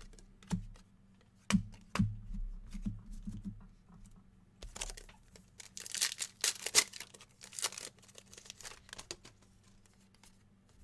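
A 2019-20 NBA Hoops trading-card pack being torn open, its wrapper crackling and crinkling in a series of short bursts about halfway through, after a few soft thumps near the start.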